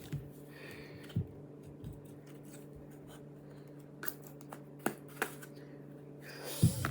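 Hands handling small plastic slime containers: scattered light clicks and taps, spaced a second or more apart, over a faint steady hum.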